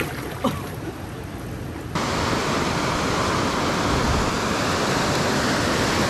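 Water sloshing around a person wading in a shallow rock pool; then, from about two seconds in, a louder, steady rush of surf breaking over a shallow reef.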